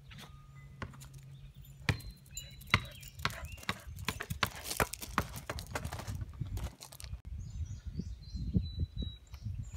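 Irregular footsteps scuffing and crunching on a paved and gravel driveway, with two sharper knocks about two and three seconds in, as a border collie moves about with a basketball. Faint high chirps sound twice.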